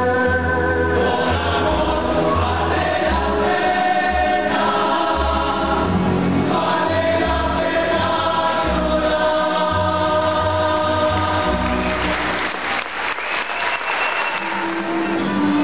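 Rondalla singing: a chorus of men's voices holding long notes over strummed guitars and a plucked double bass. About twelve seconds in, audience applause breaks out over the music.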